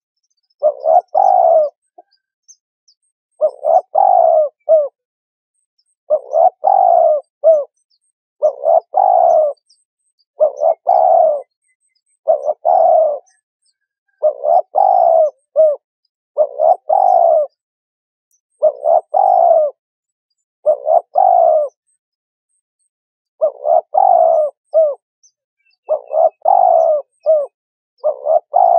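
Spotted dove cooing: short phrases of three or four coos repeated about every two seconds, with near silence between phrases and one longer pause a little past the middle.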